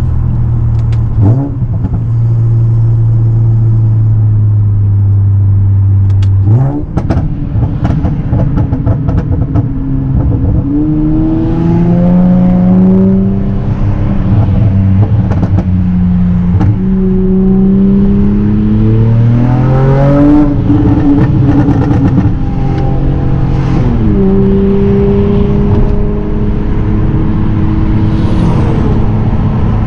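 Honda Accord V6 exhaust with catless front downpipes (RV6 precat deletes): the engine drones steadily, then blips sharply on a downshift, and pulls through the revs several times, the pitch rising and then dropping back at each gear change. Loud.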